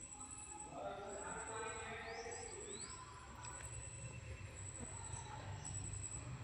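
Faint outdoor background: distant voices, a few short bird chirps and a thin high-pitched whine that breaks on and off.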